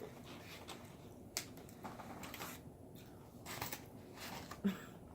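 Scattered soft clicks and rustles of food and paper wrappers being handled while eating, a few single ticks spread out, the sharpest shortly before the end.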